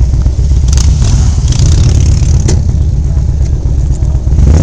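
Loud, steady low rumble of a motor vehicle on the move, mixed with wind and rubbing of clothing on the microphone, with two brief knocks about one and two and a half seconds in.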